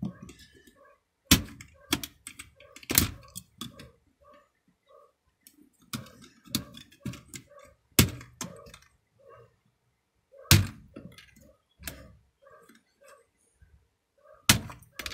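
Plastic keycaps being pulled off an old Logitech PS2 Internet keyboard by hand. Each one comes off with a sharp click, at irregular intervals, with fainter clicks of plastic in between.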